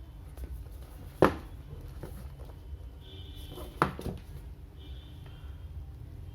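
Two sharp knocks about two and a half seconds apart, the second followed by a smaller one, from a phone box and its contents being handled and set down. A steady low hum runs underneath.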